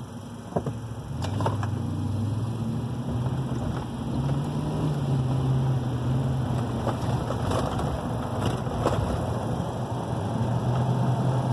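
Car engine and tyres on a wet road, heard from inside the cabin as the car pulls away and drives on in the rain. The engine hum comes up about a second in and rises a little in pitch, over a steady hiss, with a few light taps.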